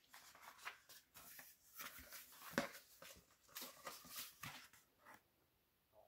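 Pages of a Little Golden Book picture book being turned and the book handled: a run of soft, irregular paper rustles and small clicks, with one sharp tap about two and a half seconds in, stopping about five seconds in.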